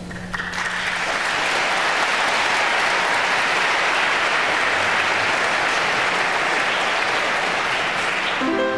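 Audience applauding after a choral piece ends, with the last low note of the music dying away in the first second. Near the end the applause gives way as instrumental music begins.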